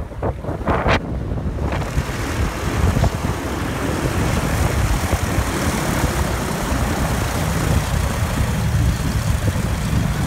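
Vintage radial-engined propeller aircraft running on the ground, a steady rumble. Wind buffets the microphone for the first second or two.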